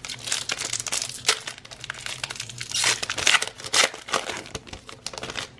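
Foil Donruss football card pack wrapper being torn open and crinkled by hand, in irregular crackles that are loudest about three seconds in.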